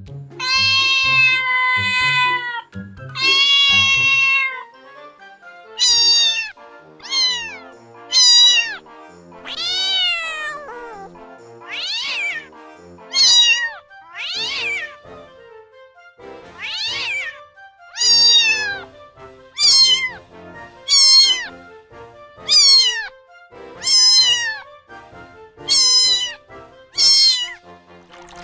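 A cat meowing over and over, about seventeen meows. The first two are long and held; the rest are shorter and mostly fall in pitch. Soft background music plays underneath.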